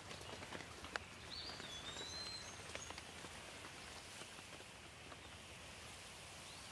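Light rain: a soft steady hiss with scattered drops falling on leaves, most of them in the first few seconds. A bird calls briefly about a second and a half in.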